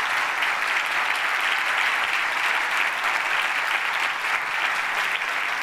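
An audience applauding steadily: a dense, even clatter of many hands clapping at once.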